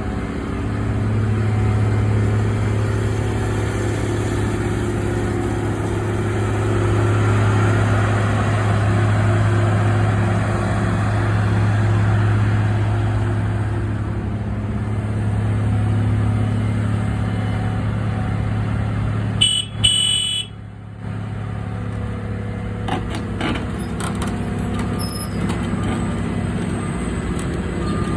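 Caterpillar 345BL crawler excavator's diesel engine running with a steady low hum. About two-thirds of the way in there is a brief break with a few clicks, and then the engine sounds quieter.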